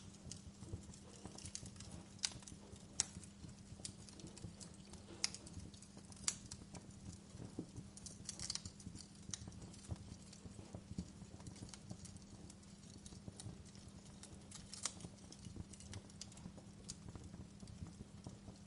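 Fireplace fire crackling: irregular sharp pops and snaps, a few louder than the rest, over a low rumble and a faint steady hum.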